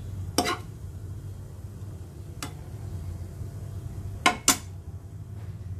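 A metal utensil clinking against a ceramic plate while meatballs are served onto it: one clink near the start, a faint one midway, and two sharp clinks in quick succession near the end, over a steady low hum.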